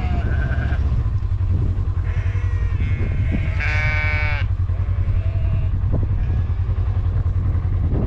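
Sheep bleating: a few short calls and one strong bleat about four seconds in, over the steady low running of an idling vehicle engine.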